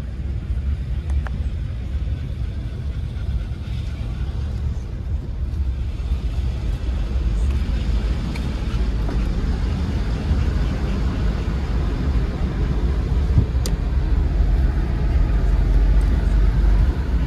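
Steady low rumble of engine and road noise heard inside a Land Rover Discovery 3's cabin as it drives along, growing a little louder near the end.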